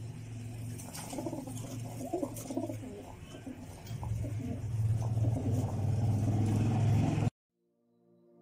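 Racing pigeons cooing and shuffling inside a wire basketing crate, with a few light clicks, over a steady low hum. The sound cuts off abruptly about seven seconds in, and soft music fades in near the end.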